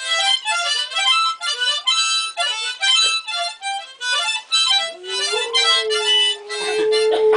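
Harmonica played in quick, rhythmic chords. About five seconds in, a boxer dog joins with one long howl that rises a little and then slowly sinks in pitch, while the harmonica goes on over it.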